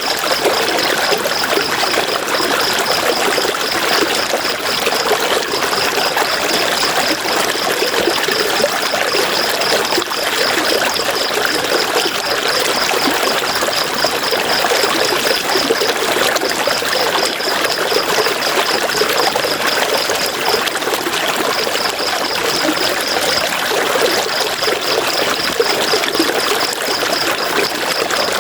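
River water rushing steadily. A high, rapidly pulsing trill runs over it, breaking off briefly a few times.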